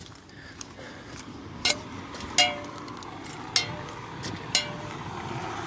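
Four sharp metallic clinks, each with a short ring, about a second apart in walking rhythm: the tip of a walking staff striking the ground with each stride.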